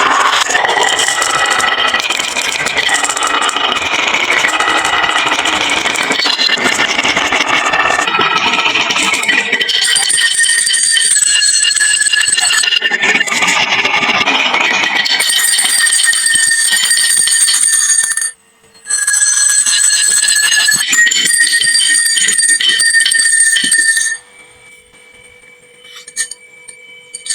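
Many marbles clattering and rolling down a wooden marble run, a dense rattle of clicks. Later, bright, steady ringing tones sound over the rattle. The sound cuts out briefly and then drops much quieter near the end.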